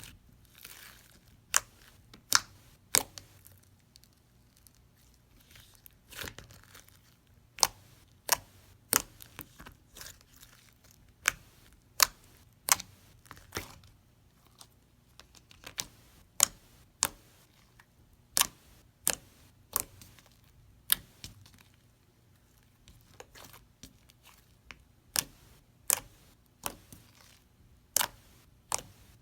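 Thick, glossy slime being squished and stretched by hand, giving sharp clicking pops at an irregular pace of about one a second, with a few short pauses.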